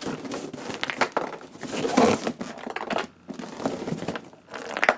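Cardboard shipping box being handled and shaken: packaging crinkling and rustling, with loose pieces knocking around inside.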